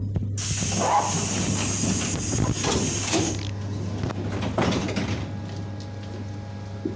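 Electric suburban train rolling slowly into a station, heard from inside its vestibule: a steady electrical hum, a hiss of air lasting about three seconds near the start, and a few knocks from the wheels and couplings.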